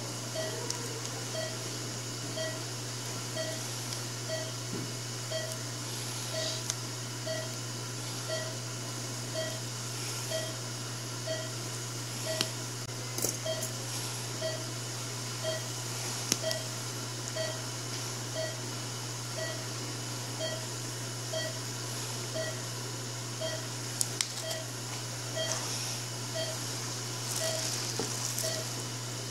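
Operating-room patient monitor giving its pulse beep about once a second, a short steady-pitched tone keeping time with the patient's heartbeat. Under it runs a steady low electrical hum, with a few faint clicks from surgical instruments being handled.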